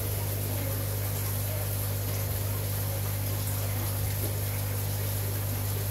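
Aquarium water bubbling over a steady low hum from the tank's pump.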